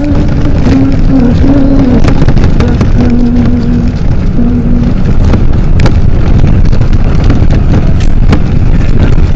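Loud, steady rumble and rattle of a moving vehicle, heard from on board, with scattered sharp clicks. A held tone that steps up and down in pitch runs through the first half and stops.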